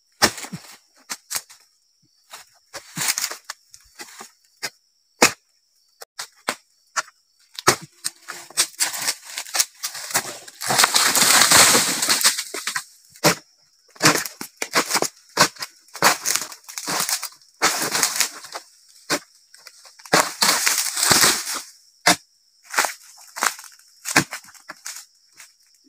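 An oil palm harvesting chisel (dodos) on a long metal pole is jabbed repeatedly into the bases of the palm fronds, making a run of sharp chopping knocks. About 11 seconds in and again about 21 seconds in, there is a longer, louder rustling crash as cut material falls down through the fronds.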